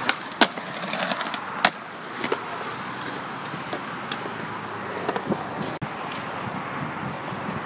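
Skateboard on concrete: wheels rolling steadily, with a loud clack of the board about half a second in and another about a second later, then a few lighter knocks.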